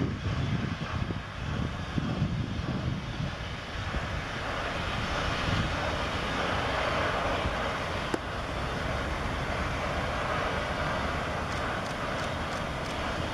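Steady, rushing drone of distant engine noise that strengthens slightly a few seconds in, with low wind rumble on the microphone during the first few seconds.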